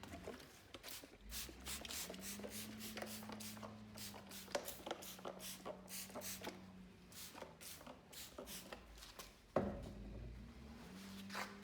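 Rapid, irregular clicks and light knocks of small objects being handled, over a steady low hum. The hum fades out about two-thirds of the way through and comes back near the end, and one heavier knock falls shortly before it returns.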